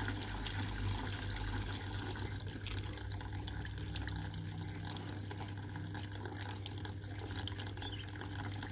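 Washing machine filling with water at the start of a quick-wash cycle: a steady rush of running water with a constant low hum.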